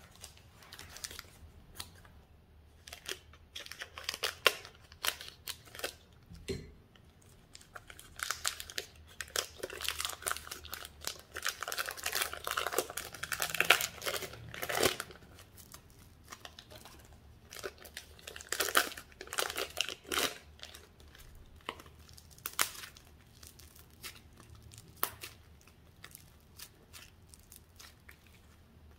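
Clear plastic bags crinkling as slime is squeezed out of them by hand, along with sticky crackling and popping of slime being pressed. The crackles come in irregular bursts, thickest through the middle stretch.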